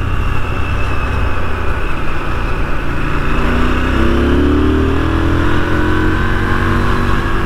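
KTM 990 Duke's twin-cylinder engine running under way, with a steady rush of wind and road noise. Around the middle the engine note climbs as the bike accelerates, then holds steady.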